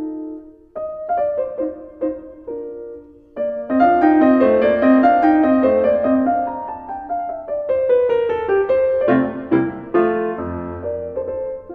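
Background piano music: a sparse melody that turns into fuller, louder chords about three and a half seconds in.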